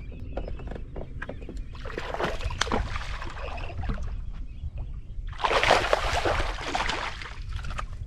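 Water splashing and sloshing twice, the second time louder, over a steady low rumble.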